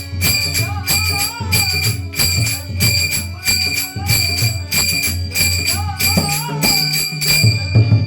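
Devotional bhajan music: small hand cymbals clash on a steady beat and ring, over a low drum and a wavering melody line.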